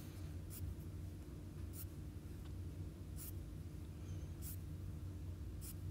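About five short, soft swishes of a fingertip brushing across a tablet's glass touchscreen as pages are swiped, over a faint steady low hum.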